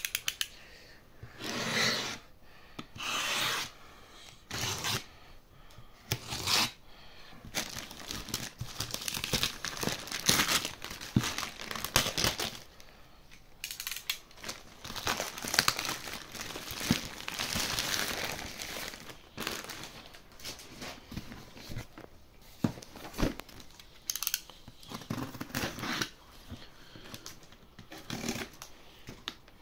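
Plastic mailer bag being torn open and crinkled by hand, in repeated irregular bursts, with handling of the cardboard box inside. Near the end, a box cutter is drawn along the box's packing tape.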